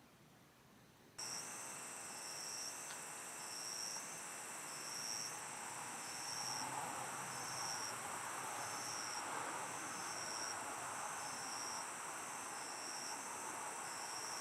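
Crickets chirping: a steady high trill with a separate chirp repeating a little more than once a second. It starts abruptly about a second in.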